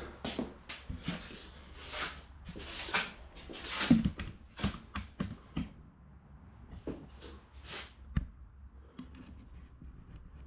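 Workshop handling noises: a series of knocks, scrapes and rustles as metal parts and tools are moved about, busiest in the first few seconds and sparser after, with one sharp click about eight seconds in, over a low shop hum.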